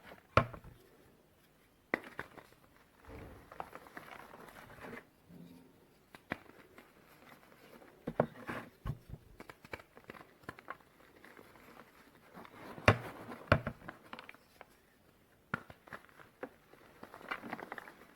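Reformed gym chalk pieces being crushed and crumbled: crunchy crackling with several sharp snaps as chunks break, the loudest about half a second in and about thirteen seconds in.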